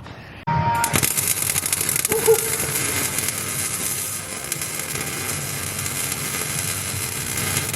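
Electric welder arc crackling and sizzling steadily for about seven seconds, starting suddenly just after the start: a nut being welded onto a snapped-off exhaust stud so that the stud can be wrenched out.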